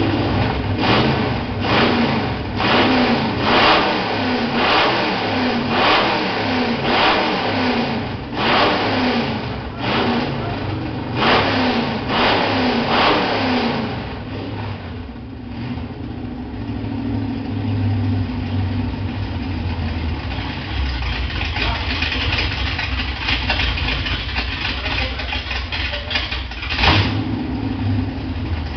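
Dodge V8 engine revved in a run of short throttle blips, about one a second, then settling to a steady idle, with one more blip near the end.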